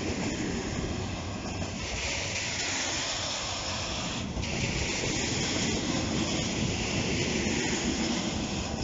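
Freight train of flat wagons rolling past at close range: a steady rumble of steel wheels on rail with a rasping, hissing noise that grows stronger about two seconds in.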